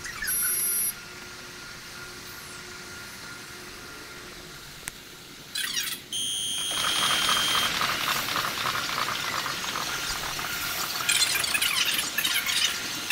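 Shinkansen platform sound sped up six times, so everything comes out high-pitched and squeaky. There is a short steady tone about half a second in, then a quieter steady stretch and another short tone around six seconds. From about seven seconds the rushing noise of an arriving bullet train builds, with quick squeaky bursts near the end.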